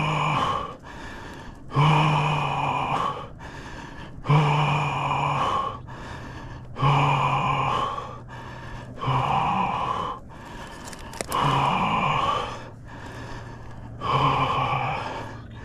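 A man gasping and groaning after a mountain-bike crash, one long voiced gasp about every two and a half seconds.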